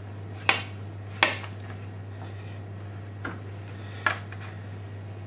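A knife and lamb cutlets knocking on a plastic cutting board as they are handled: four sharp clacks, the two loudest within the first second and a half, over a low steady hum.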